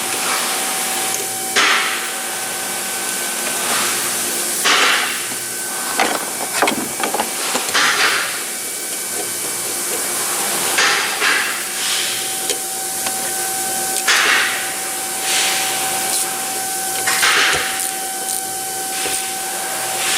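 Hand tools working on car parts: a string of short, sharp knocks and clatters every second or two, over a steady hiss and hum.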